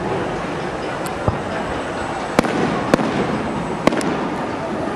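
Aerial fireworks going off: about six sharp bangs of bursting shells at uneven spacing, two of them in quick succession near the end, over a steady haze of background noise.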